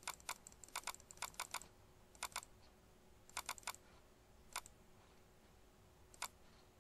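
Computer keyboard keys clicking in short, quick bursts of two to five keystrokes, with pauses between the bursts.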